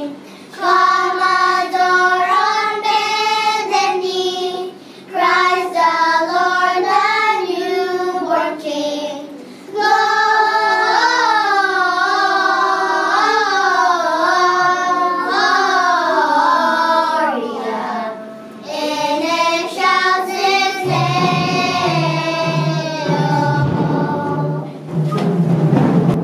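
Children's choir singing in phrases, with short pauses between lines. A low steady tone joins under the voices about twenty seconds in.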